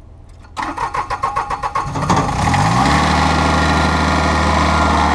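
Red riding mower's engine cranked by its electric starter with a fast, rhythmic chugging for about a second and a half. It catches about two seconds in, rises briefly in pitch and settles into steady running.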